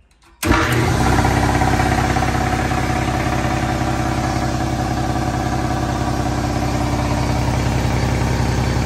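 Ingersoll Rand 5 hp single-phase piston air compressor (SS5 L5 pump) kicking on about half a second in, its electric motor and pump starting abruptly and then running loudly and steadily with an even mechanical pulse as it builds tank pressure.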